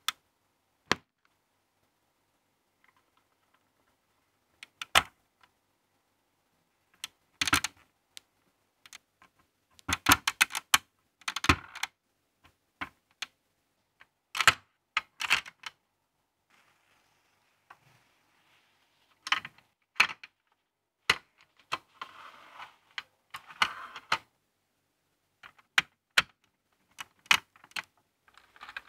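Hard plastic LEGO Technic parts clicking and snapping as they are pushed onto pins and axles: sharp clicks, single and in short clusters, with silent gaps between.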